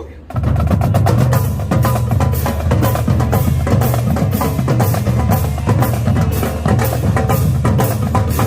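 Marching drumline playing a fast, dense cadence: rapid snare strokes over bass drums. The line comes in together abruptly just after a brief break at the start.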